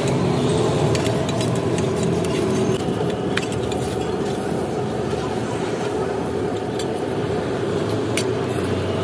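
Paratha frying in oil on a large flat tawa over a steady low rumble, with a few sharp metallic clicks of the steel spatula and ladle against the griddle, one about three seconds in and one near the end.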